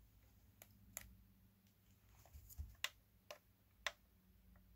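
Faint, sharp clicks, about six over a few seconds, as the power button of a small plastic mini LCD projector is pressed and its shell handled. A faint low hum runs underneath.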